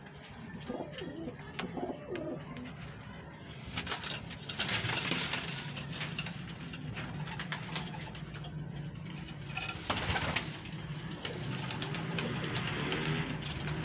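Domestic pigeons cooing in a loft, with scattered clicks and a spell of rustling about four seconds in.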